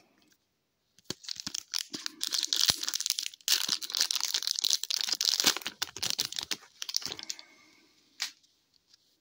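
Foil wrapper of an Upper Deck hockey card pack being torn open and crinkled as it is peeled back from the cards, a dense crackling that starts about a second in and dies away after about seven seconds. A single short tap follows near the end.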